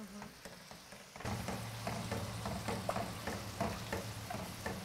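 Milk being added to a hot roux of butter, onion and flour in an aluminium saucepan: the sauce sizzles while a silicone spatula stirs and scrapes the pan, with short scraping strokes over a steady hiss. The sizzle gets louder and steadier about a second in, over a low steady hum.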